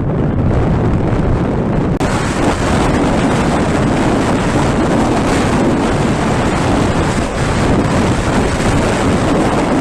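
Heavy wind buffeting on a TomTom Bandit action camera's built-in microphone while riding, a loud, steady rush that drowns out everything else. About two seconds in, the rush becomes brighter and hissier.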